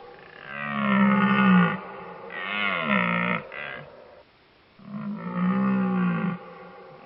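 An animal giving long pitched calls, three in a row, each about a second long with short gaps between; the first two slide down in pitch at their ends.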